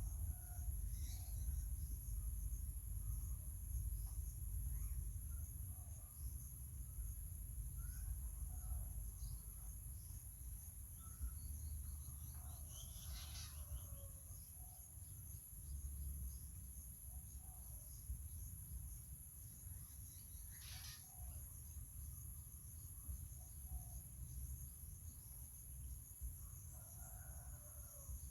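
Steady, high-pitched insect drone in the background, with a low rumble underneath and a few faint, short chirps or calls scattered through it.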